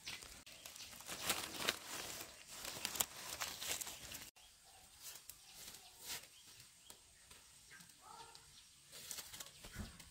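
Dense, irregular rustling and crunching of footsteps through vegetation for about four seconds, then a sudden cut to much quieter outdoor background.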